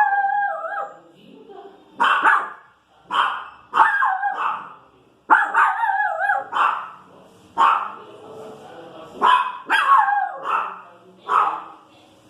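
Small pinscher dog barking in about ten sharp, high barks with pauses between them, some stretched into longer grumbling yowls that bend in pitch. It is the alarm barking of a dog reacting to noise out in the street.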